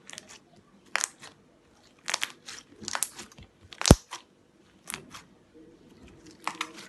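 Store-bought slime being squeezed and stretched by hand, giving bursts of crackling pops and clicks about once a second, the loudest just before four seconds in.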